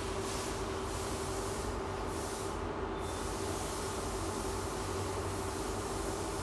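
Steady machinery hum with a constant tone and low rumble, with a few short hisses in the first three seconds.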